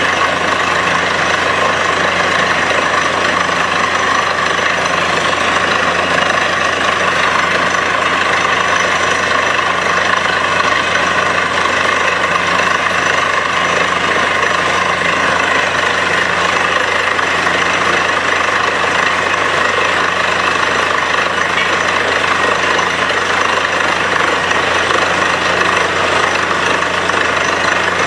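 Truck-mounted borewell drilling rig running steadily under load while it drills, blowing mud and water up out of the bore, as a loud, unchanging engine drone.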